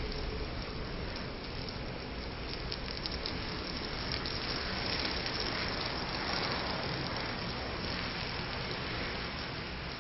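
A chicken model made of matchsticks burning: a steady rush of flames with a run of small crackles and pops from about two to five seconds in, getting a little louder around the middle.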